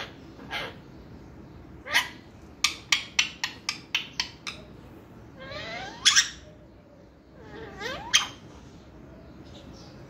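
A pet parrot vocalizing: a couple of short calls, then a quick run of about eight sharp chirps or clicks, then two drawn-out calls that rise steeply in pitch, the first near the middle and the second about two seconds later.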